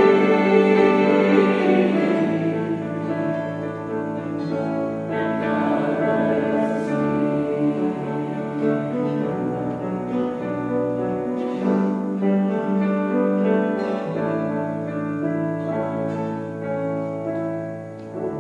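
Sacred choral music in a chapel: the choir's sung chord fades over the first two seconds, then a quieter instrumental passage follows with held low notes.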